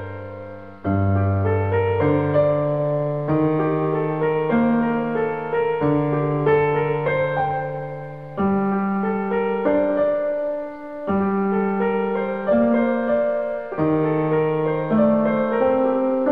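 Slow piano music: sustained notes and chords changing every second or so.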